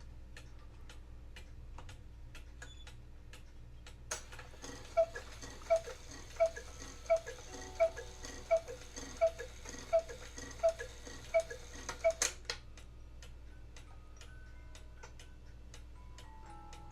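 Antique Swiss Hunter-style cuckoo clock striking the hour. It ticks steadily, and after a click its bellows cuckoo call sounds about a dozen times, less than a second apart, over the whir of the strike train. The strike train stops with a click, and the ticking carries on; a music box starts playing near the end.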